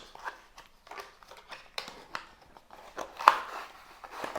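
A small cardboard product box being opened by hand: packaging rustling and scraping, with scattered light clicks and one sharper knock about three seconds in.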